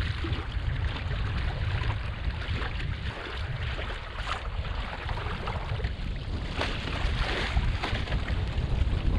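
Wind rumbling on the microphone while water splashes and rushes along the hull of a small sailing kayak under sail, with a louder rush of water about seven seconds in.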